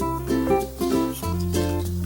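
Upbeat background music: short plucked-string notes over sustained bass notes.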